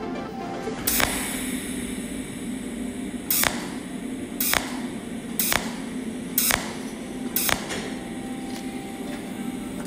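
Cold welding machine firing single pulse arcs from its tungsten electrode onto the end of a metal rod: six sharp snaps, the first about a second in and the last five about a second apart, over a steady low hum.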